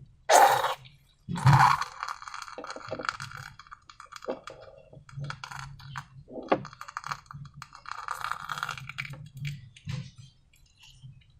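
Slime-making handling sounds: two louder knocks in the first two seconds, then a stretch of small sticky crackles and clicks.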